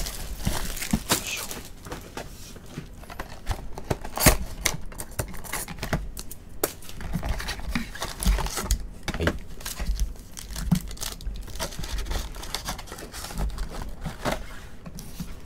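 Plastic shrink wrap crinkling and tearing as it is stripped off a 2024 Bowman Chrome Mega Box of trading cards, then cardboard flaps and foil card packs rustling as the box is opened and the packs are taken out. It comes as a run of irregular crackles and rustles.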